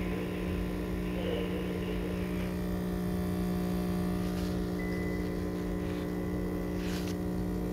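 De'Longhi pump espresso machine brewing, its pump giving a steady buzzing hum as espresso runs into the cup, with a couple of light clicks in the second half.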